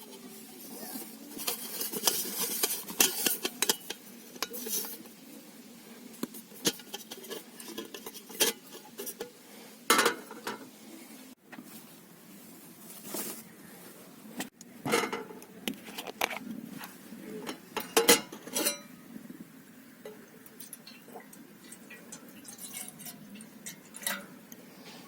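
Cookware and cutlery clinking and knocking at irregular intervals, with a few sharper knocks standing out.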